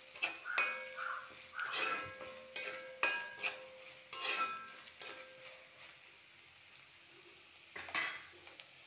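A spoon stirs and scrapes chopped ginger, green chillies and curry leaves frying in oil in a metal pot, knocking the pot with ringing clinks about once or twice a second under a light sizzle. The ginger and chillies are being fried until they turn red. The stirring pauses about five seconds in, leaving a quieter stretch, and one more loud scrape comes near the end.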